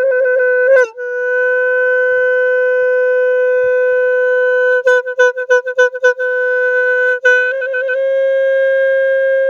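A Khmer sneng, a traditional horn blown from a hole in its side, sounding one steady high note. The note is held for long stretches and broken into quick stuttering pulses at the start, about halfway through, and briefly near the end.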